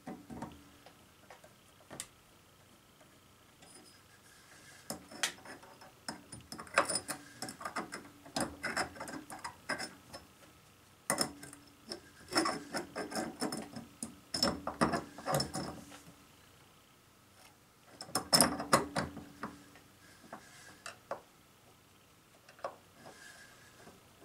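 Hand work on a light fixture and its ceiling box: quick runs of small metal clicks, taps and scrapes, as from screws and a screwdriver, in three bursts with pauses between.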